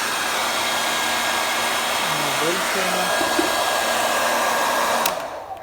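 Philips hand-held hair dryer running with a steady rushing blow and a faint whine, working normally. It is switched off about five seconds in and its fan winds down.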